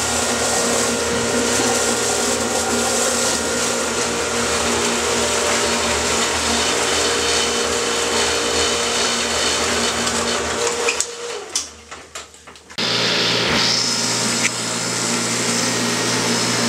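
Geothermal flush cart pump running steadily, churning water and ethanol through its reservoir while it purges air from the ground loop. About eleven seconds in the sound falls away with a dropping hum, then resumes abruptly under two seconds later.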